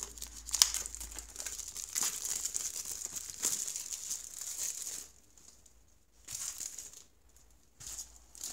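Clear plastic shrink wrap crinkling as it is pulled off a small cardboard box and crumpled in the hand. There is about four seconds of dense crackling, then three short crinkles near the end.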